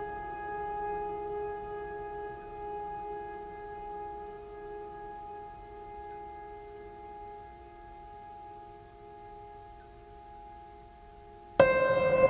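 Background music: a held chord of steady tones that slowly fades, then a new, louder held note starts suddenly near the end.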